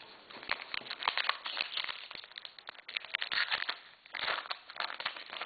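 A trading-card pack wrapper being torn open and crinkled by hand, in a run of irregular crackling rustles and clicks.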